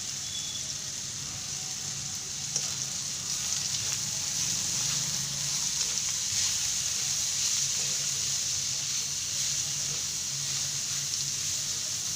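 Boiled bitter gourd and spices sizzling steadily in hot oil in a kadai, with a few faint clicks. The sizzle grows a little louder about four seconds in.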